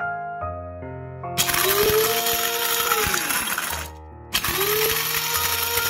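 Small electric spice grinder running in two bursts, grinding dried chillies and toasted soybeans, peanuts, Sichuan peppercorns and star anise into powder. In each burst the motor whine rises quickly, holds, then winds down; the first starts about a second and a half in, the second just after four seconds in. Background music plays throughout.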